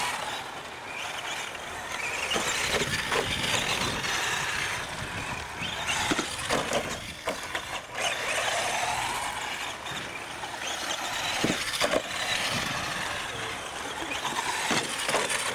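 Several radio-controlled model trucks racing on dirt: their motors and gears whine, rising and falling in pitch as they speed up and slow down. Tyres scrabble on the dirt, with a few knocks from bumps.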